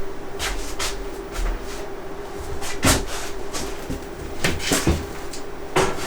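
Irregular knocks and clacks of battery rack parts being handled and fitted together, the loudest a little under halfway through, over a steady low hum.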